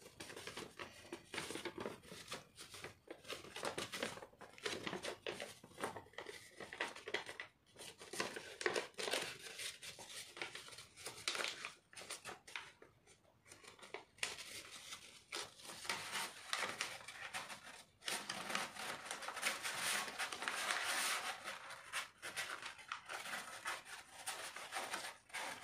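Origami paper rustling and crinkling as it is folded and creased into a triangle by hand, in irregular bursts with a couple of brief lulls.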